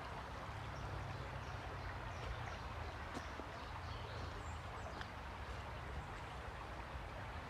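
Small stream flowing and trickling steadily over its bed, with a few faint high bird chirps above it.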